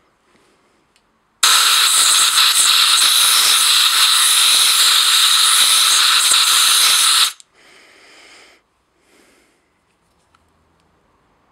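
Pressurised jet hissing loudly into a disassembled Briggs & Stratton 5 HP carburetor to blow out its passages during cleaning: one long blast of about six seconds that cuts off suddenly, then two short, fainter bursts.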